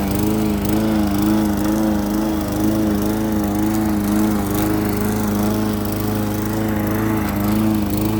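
Walk-behind push lawn mower's small gasoline engine running steadily, with a slight regular waver in its pitch.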